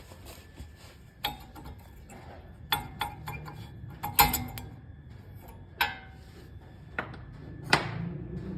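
Metal clinks and rattles of rear disc brake pads being worked out of the caliper bracket: about seven sharp separate clinks, some with a brief metallic ring.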